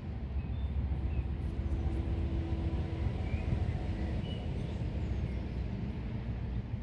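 Outdoor ambience: a steady low rumble with faint, scattered bird chirps, and a faint held low hum for a couple of seconds around the middle.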